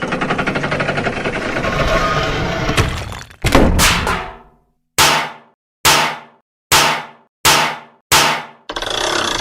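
Cartoon sound effects: a dense, fast-pulsing rattle for about three seconds, then a sharp cluster of hits. Five single struck hits follow, about one every 0.8 s, each dying away quickly, and a short burst of hissing noise comes near the end.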